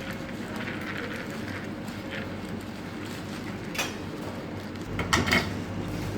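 Metal cooking utensils clinking, once about four seconds in and in a louder cluster of clanks near the end, over a steady rushing background.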